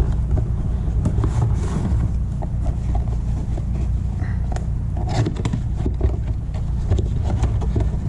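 Hands handling and opening cardboard drone packaging, with scattered light scrapes, taps and rustles, over a steady low rumble.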